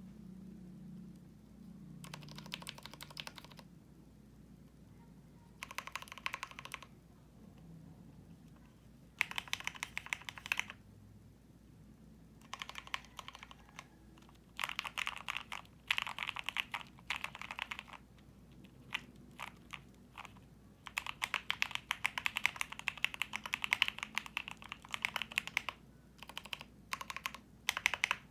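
Custom 60% mechanical keyboard (aluminium Tofu60 case, polycarbonate plate, PE foam, lubed Gateron Milky Yellow Pro linear switches, Cherry-profile keycaps) being typed on in bursts of rapid keystrokes with short pauses between them; the longest, densest run comes in the second half.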